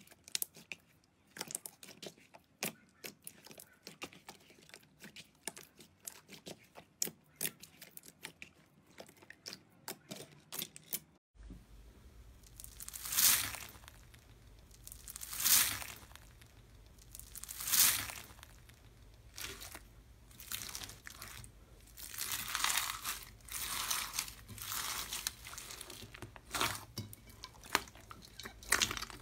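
Hands kneading thick glossy slime, making many quick sticky clicks and pops. About a third of the way in it cuts to hands pressing clear slime packed with foam beads, giving crunchy crackling swells about every two seconds, then denser crackling.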